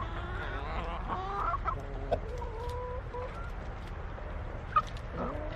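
Mother hen clucking among her chicks: a run of short clucks and a longer drawn-out call, with one short sharp call near the end, over a steady low rumble.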